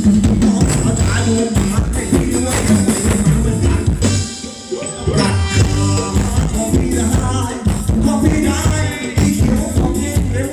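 Live Thai luk thung band playing ramwong dance music, with singing and percussion keeping the beat. The music thins out briefly about four seconds in, then the full band comes back.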